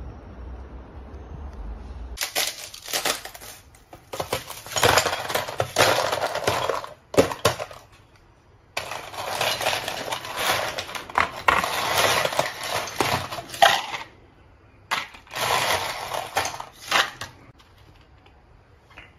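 Ice cubes scooped with a plastic scoop from a plastic ice bin and dropped into a clear plastic cup: several bursts of rattling, clinking ice, each a few seconds long, with short pauses between them, starting about two seconds in.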